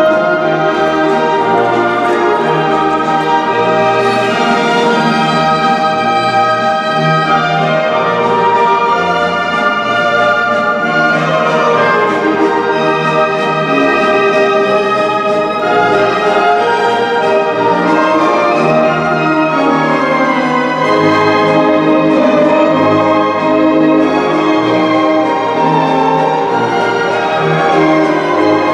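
Orchestral music with prominent brass, played loud and steady over the rink's sound system for the skaters' short dance.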